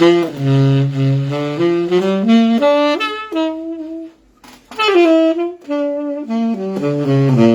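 Saxophone played in subtone, the soft, breathy, spoken-voice sound, in two short melodic phrases with a brief break about four seconds in.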